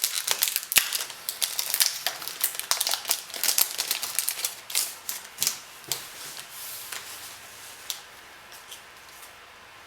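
A foil trading-card pack being torn open and crinkled, a dense run of crackles and clicks that thins out and quietens over the last few seconds as the cards are slid out.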